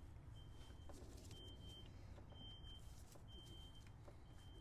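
Faint electronic beeper sounding a single high-pitched beep about once a second, each about half a second long, over a low steady hum.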